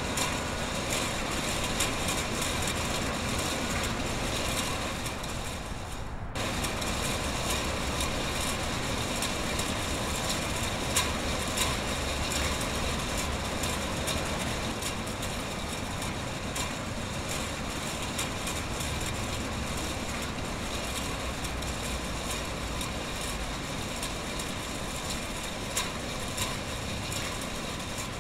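Steady running noise of a food-packaging production line and its conveyor, a continuous mechanical hum and hiss with a few faint clicks. The sound drops out for a moment about six seconds in.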